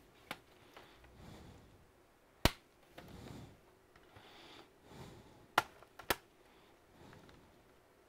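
Gloved hands handling a Lenovo IdeaPad C340 laptop and its bottom cover: a few sharp clicks and taps, one loud one about a third of the way in and two more half a second apart past the middle, with soft scuffing and rustling between.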